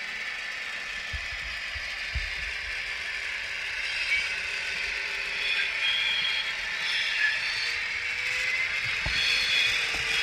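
H0-scale model ÖBB class 2068 diesel locomotive with an ESU digital sound decoder running with a train of hopper wagons: its diesel engine sound plays from the model's small loudspeaker, with a few knocks and rattles as the wheels cross the points.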